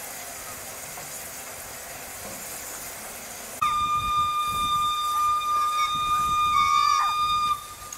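Narrow-gauge steam locomotive's whistle sounding one long blast of about four seconds, starting suddenly about three and a half seconds in and cutting off sharply, over a steady background hiss.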